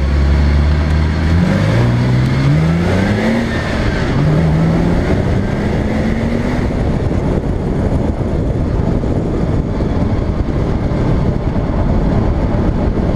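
Porsche 987 Cayman's flat-six engine accelerating hard through several gears, its pitch climbing and dropping back at each upshift. After about seven seconds a steady rush of wind and tyre noise on the side-mounted camera takes over.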